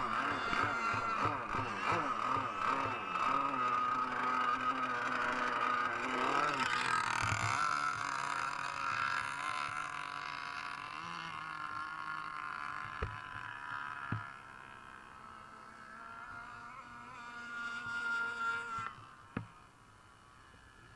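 Small two-stroke petrol engine of a radio-controlled model race boat running at high revs as it speeds across the water: a steady high whine that wavers in pitch and fades about two-thirds of the way through. A few sharp knocks sound near the end.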